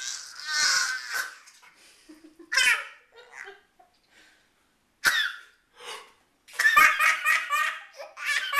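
Toddler laughing in separate short bursts, then a longer run of quick, rapid laughter pulses near the end.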